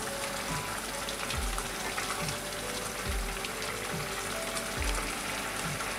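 Wet mixture of grated bottle gourd, milk and sugar sizzling and bubbling in a kadai as a spatula stirs it; the sugar has made it juicy again and it is being cooked down until the juice dries. Soft instrumental music plays underneath.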